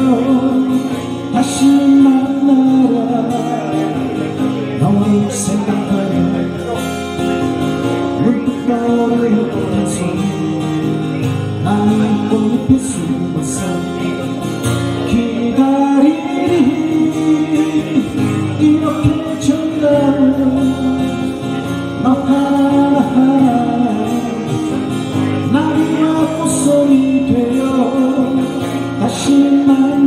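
Live acoustic music: two acoustic guitars played through a PA, with a man singing over them.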